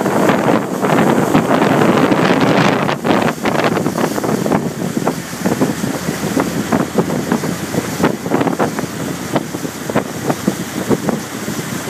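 Wind buffeting the microphone over water rushing past a moving boat, with many small irregular splashes and slaps; the rush is strongest in the first few seconds.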